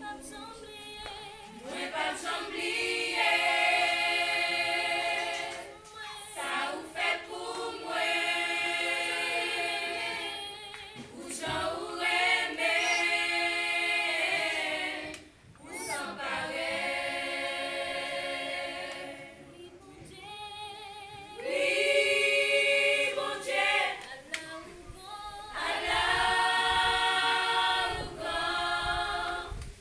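A small women's choir singing together a cappella, in sung phrases separated by short pauses every few seconds.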